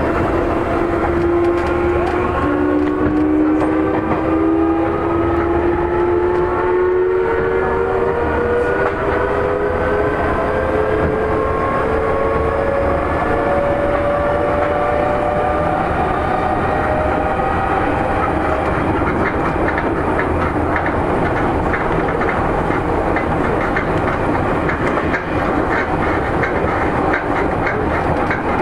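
Seibu 9000-series electric train heard from on board, its VVVF inverter and traction motors whining in several tones that rise steadily in pitch as it accelerates. After about two-thirds of the way through, the whine fades and the wheels clack regularly over rail joints.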